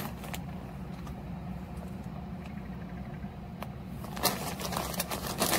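Plastic mailer bag crinkling as a hoodie is handled in it: a few scattered crackles, then a denser run of rustling from about four seconds in, over a steady low hum.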